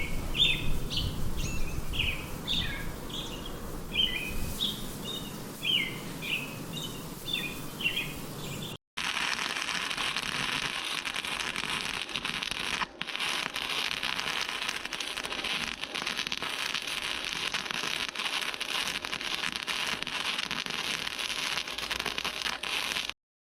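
Birds chirping in quick, repeated calls for about the first nine seconds. After a brief cut comes a steady, crackling hiss of an electric welding arc.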